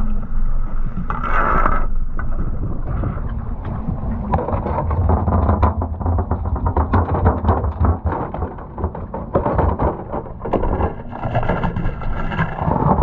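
A boat's engine running steadily with a low hum, with frequent short knocks and clatter from handling on the deck.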